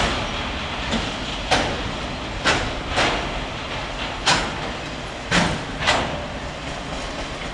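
Freight train of autorack cars rolling past at speed, a steady rumble of wheels on rail broken by about seven sharp metallic clacks, two of them in pairs about half a second apart.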